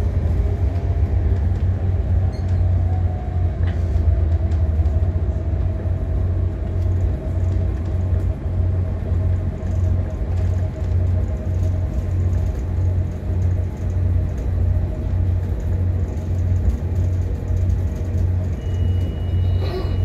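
Inside a WES diesel commuter railcar running at speed: a steady low rumble that pulses at an even rhythm, with a faint whine slowly falling in pitch. A thin steady high tone comes in near the end.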